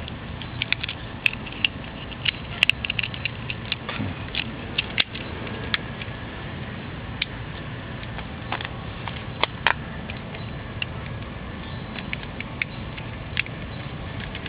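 Irregular small clicks and crackles of hands handling the fog-light wiring's plastic tube and electrical tape, dense at first and sparser after about five seconds, over a steady low background noise.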